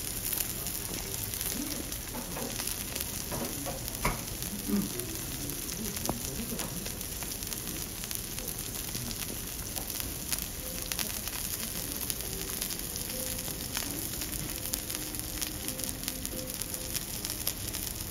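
Thick A5 Kobe beef loin steak searing on a steel teppanyaki griddle: a steady sizzling hiss of spitting fat, with scattered small crackles and a couple of louder pops about four seconds in.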